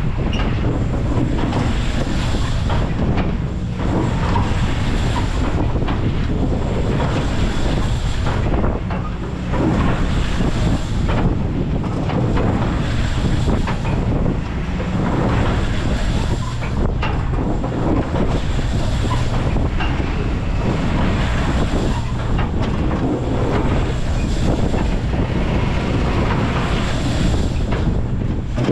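Garbrick Merry Mixer scrambler ride running at speed: wind buffets the microphone over a steady low mechanical rumble. The wind noise swells and eases every couple of seconds as the car is swung around.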